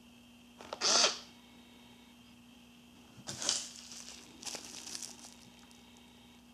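Plastic packaging handled: a short, loud rustle about a second in, then bubble wrap crinkling in the hands for about two seconds from around three seconds in.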